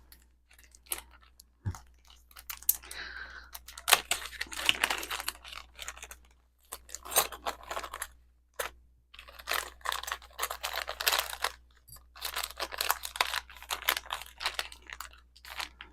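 Packaging rustling and crinkling with jewelry clicking as pieces are unwrapped and handled: a dense run of irregular small clicks and crackles with brief pauses.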